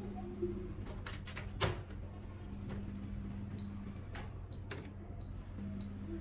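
Scattered small clicks and taps of hand work on a TV, one sharper knock about a second and a half in, over a steady low electrical hum.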